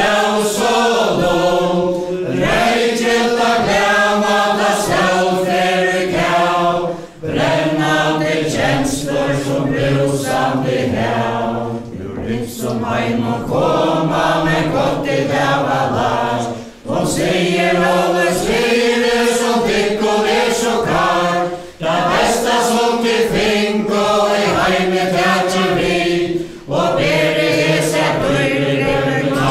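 A crowd of men and women singing a Faroese ballad together in unison, unaccompanied, as for the Faroese chain dance. The singing breaks off briefly between lines about every five seconds.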